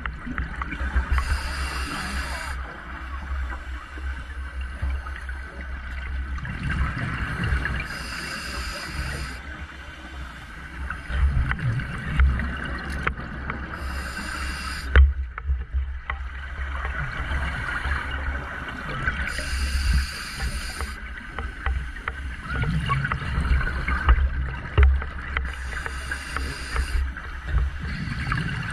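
A scuba diver breathing through a regulator underwater: five rhythmic bursts of hissing breath and bubble noise, about one every six seconds, over a steady low rumble of water against the camera housing.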